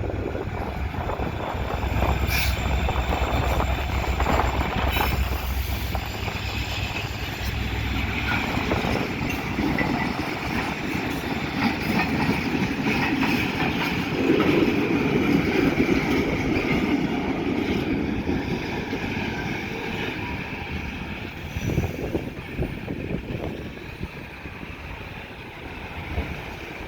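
Freight train passing: a deep diesel-locomotive rumble for the first few seconds, then the cars' wheels rolling and clicking over the rails, fading near the end.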